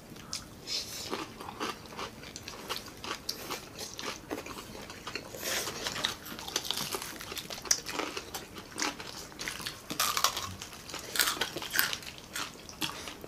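People biting into and chewing crispy pata, deep-fried pork knuckle, its crackling skin giving many irregular sharp crunches, thickest about ten seconds in.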